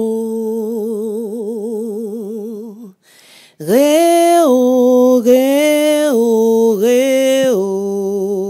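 A woman singing a slow, sad folksong in the Bini (Edo) language, unaccompanied. She holds long notes with a wide vibrato and breaks off briefly about three seconds in before going on.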